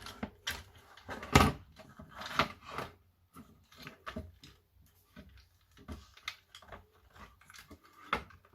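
Plastic parts of a landline telephone being handled during disassembly: a run of irregular clicks and knocks, with one loud knock about a second and a half in and a brief scraping rustle soon after.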